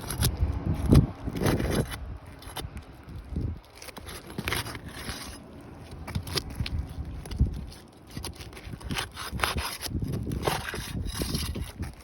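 Roof shingles being pried up and unsealed: irregular scraping and rubbing strokes as the sealant strip holding each tab is broken loose, loudest about a second in and again near the end.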